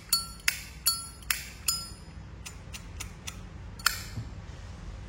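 Metallic clinks of a Zippo lighter's lid being flicked open and snapped shut over and over, about two or three a second, each with a short ringing tone. After about two seconds come a few lighter clicks, then one more sharp clink about four seconds in.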